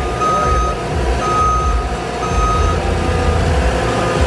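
Construction machine's backup alarm beeping about once a second, each beep about half a second long, over the low running of the machine's engine.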